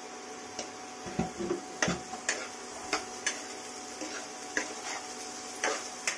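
A steel spoon stirring diced raw papaya in a pan, knocking and scraping against the pan in about a dozen irregular clicks over a steady faint hiss.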